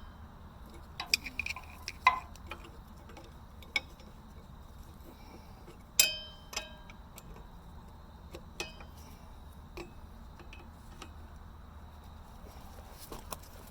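A wrench clinking and tapping against steel as a nut is worked by hand onto the dozer's idler pulley bolt, in irregular clicks with a louder ringing metallic clank about six seconds in.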